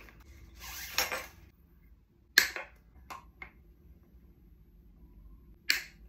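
A short creaking rustle about a second in, then a few sharp mechanical clicks: the loudest a little before halfway, two fainter ones soon after, and another sharp one near the end.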